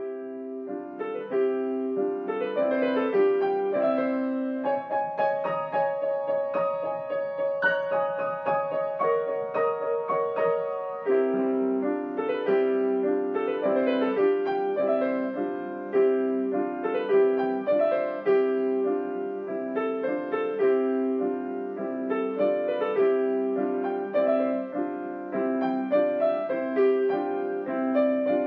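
Solo piano improvisation: a repeating figure of low notes under a melody. From about five seconds in to about eleven, rapid repeated notes play over held chords, then the low repeating figure comes back.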